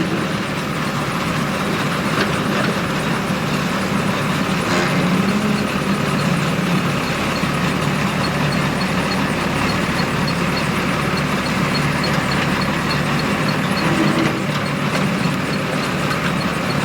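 Heavy diesel engine of earthmoving equipment running steadily, with a faint fast regular ticking from about five seconds in.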